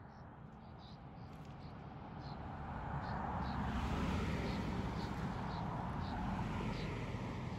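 Wind buffeting the microphone in gusts, swelling to its strongest about halfway through, with a faint high chirp repeating about twice a second.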